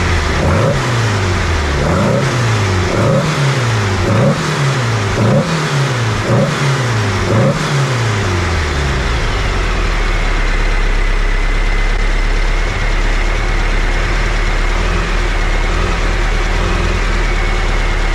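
Air-cooled VW flat-four with dual Weber 48 IDA carburetors revved by hand at the throttle linkage about eight times, roughly a second apart. It then settles to a steady idle for the rest of the time.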